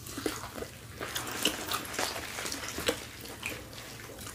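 Close-miked eating sounds: wet chewing, smacking and lip clicks from people eating smoked turkey leg, a string of short, sharp clicks with no speech.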